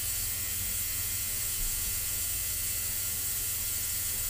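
Steady mechanical buzz with a high hiss from a machine running in the workshop: the carburettor cleaner working through its cleaning cycle. No distinct clicks or knocks stand out.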